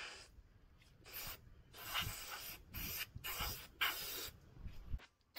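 Compressed-air paint spray gun hissing in a series of short bursts as paint is sprayed onto a vehicle frame part.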